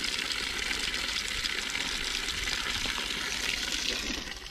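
Water pouring steadily from a small white plastic pipe and splashing onto the ground. It fades away about four seconds in.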